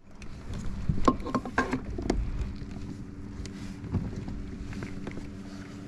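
Kayak on the water: sharp knocks and taps against the hull, mostly in the first two seconds, over wind and water noise, with a steady low hum from about two seconds in.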